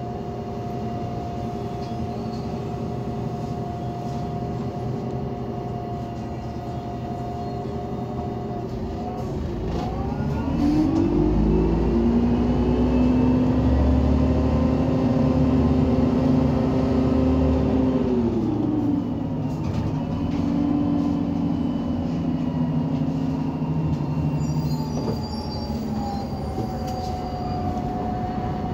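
Irisbus Citelis 18 articulated bus's Iveco Cursor 8 natural-gas engine running. It starts near idle with a steady high tone over it, rises in pitch and loudness about ten seconds in, and holds there for several seconds. It drops back, lifts briefly again, then settles near idle.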